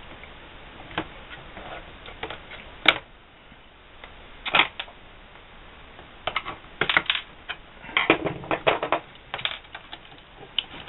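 Irregular small sharp clicks and taps of plastic and metal, some single and some in quick clusters, as wire-harness plugs are pried loose and pulled from the circuit board of a SatLink WS6908 satellite meter with fingers and a screwdriver.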